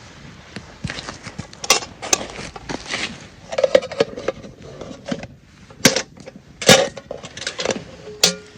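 Metal camp cookware and utensils being handled: a string of sharp clinks and clanks, a few of them ringing briefly.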